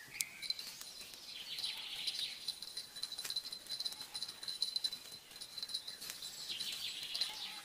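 Insects trilling steadily at a high pitch in the surrounding forest, with a few sharp clicks.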